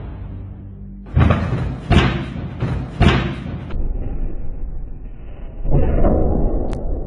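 A person falling onto a hard floor: a series of sudden, heavy thumps about one, two and three seconds in, with a rougher burst of noise near the end.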